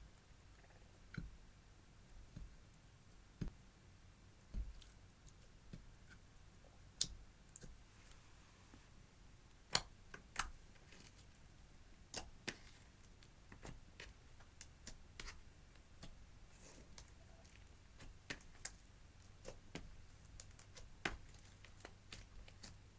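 Clear slime being kneaded and pressed by hand, giving off small, irregular clicks and pops, a few of them sharper than the rest.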